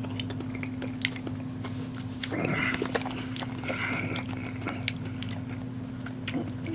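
A man chewing a salted grape tomato, with scattered small mouth clicks and soft crunches over a steady low hum.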